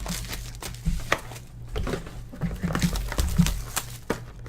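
Crinkling wrappers and scattered sharp clicks as trading-card packs and cards are handled and opened.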